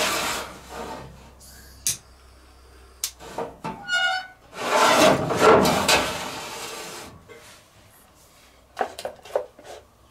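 Sheet-metal grill parts being handled: scraping and rubbing as a metal tray and rod are slid into a charcoal grill, with a short squeak about four seconds in and a few sharp knocks.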